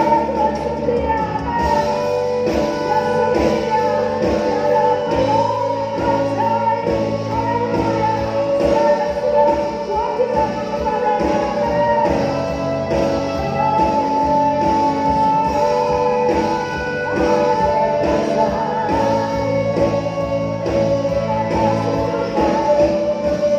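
Choir singing an Indonesian worship song over instrumental accompaniment, with a steady sung melody throughout.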